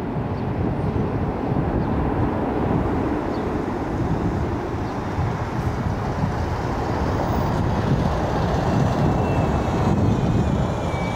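Jet airliner's engines rumbling steadily as it touches down and rolls out along a wet runway, growing somewhat louder in the second half with a faint whine near the end.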